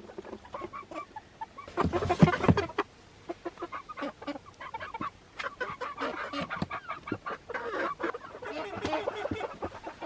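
Flock of chickens clucking in short, frequent calls as they settle in for the night, with a louder burst about two seconds in.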